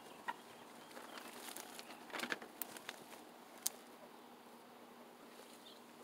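Faint outdoor background with a few light clicks and rustles of grapevine leaves and stems being handled, the loudest a small cluster about two seconds in.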